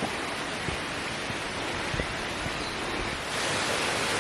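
Steady rush of a waterfall's falling water, growing louder about three seconds in, with a few soft low thumps.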